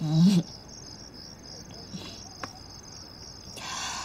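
Crickets chirping in a steady, high, rapidly pulsing trill. A short breathy sound comes in near the end.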